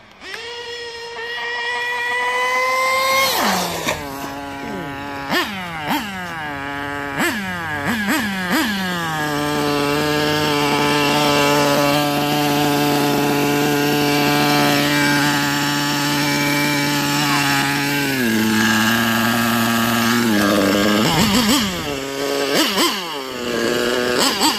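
Losi nitro buggy's small glow-fuel engine: its note climbs for about three seconds, then comes a run of quick throttle blips rising and falling in pitch, then it runs at a steady idle. About 18 seconds in the note drops, a few more blips follow, and it settles back to idling.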